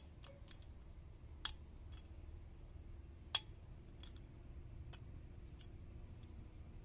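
Metal needle-nose pliers clicking and tapping against the metal parts of an opened hard disk drive's head actuator. There are three sharp clicks, at the start, about a second and a half in and about three and a half seconds in, with fainter ticks between them, over a low steady hum.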